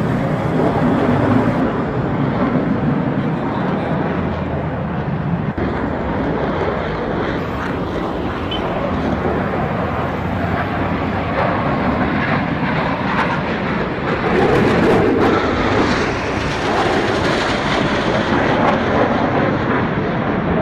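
Engine noise of a single-engine F-16 fighter jet flying an aerobatic display: a loud, steady rushing jet sound that swells louder about two-thirds of the way through.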